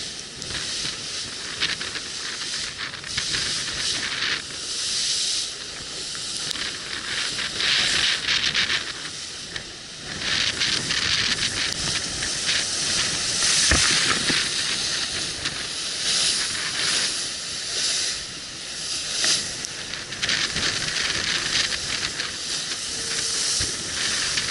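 IMOCA 60 racing yacht driving hard through waves: rushing water and spray hissing over the bow and deck, swelling and easing every few seconds as the hull meets each wave.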